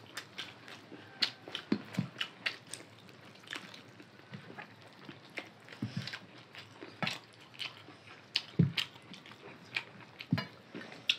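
Close-up eating sounds of two people eating rice and chicken curry by hand: chewing and lip smacking, heard as many short, sharp clicks with a few soft low thumps in between.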